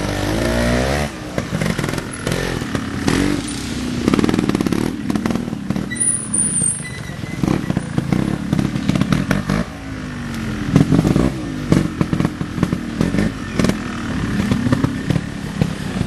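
Vintage trial motorcycle engine being blipped: revs rising and dropping back several times, with scattered clicks and clatter.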